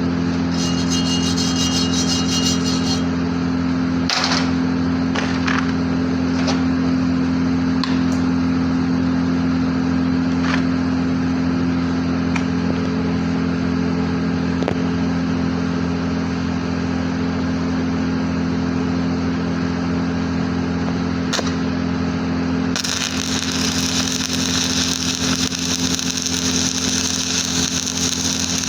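Stick (electric arc) welding on a pipe: the arc crackles steadily over the constant hum of the welding machine, with a few sharp pops. About 23 seconds in the crackle turns brighter and hissier.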